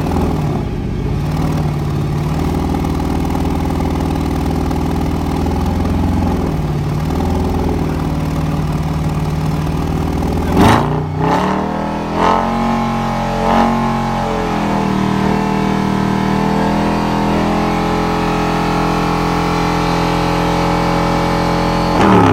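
Mercedes-Benz C63 AMG's M156 V8 through a modified exhaust, running steadily for about ten seconds. About halfway through it is revved sharply once, then blipped twice more. It then holds steady at higher revs until the revs drop right at the end.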